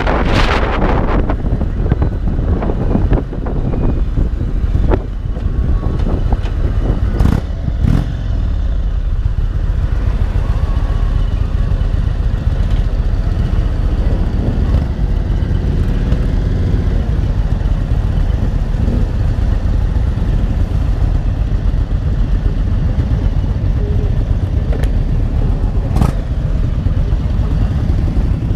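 2022 Indian Springfield Dark Horse's Thunderstroke 116 V-twin running steadily at low road speed, heard from the rider's seat. Wind buffets the microphone in the first second, and a few sharp clicks come about seven, eight and twenty-six seconds in.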